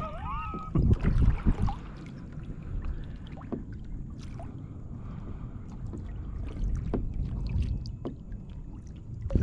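Wind buffeting the microphone and water lapping against a kayak's hull, a gusting low rumble with scattered small clicks and splashes.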